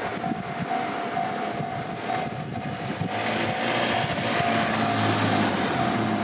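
Japanese level crossing's electronic warning bell ringing with a steady repeating beat, over the rushing rumble of a train passing through the crossing.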